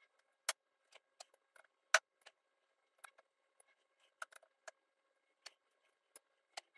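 Scattered sharp clicks and light metallic taps at irregular spacing, the two loudest about half a second and two seconds in, as an adjustable six-jaw lathe chuck is turned by hand and trued against a dial indicator. A faint steady hum runs underneath.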